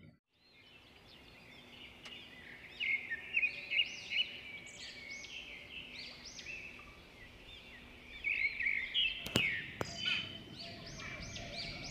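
Several birds chirping in quick, repeated high notes, with two sharp clicks about nine and a half seconds in.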